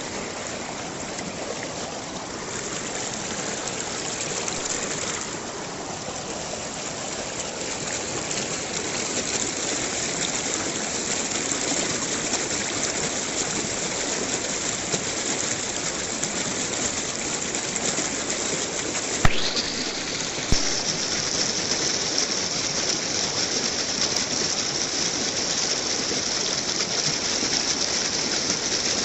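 Steady rushing of running water, with two sharp clicks close together about two-thirds of the way in.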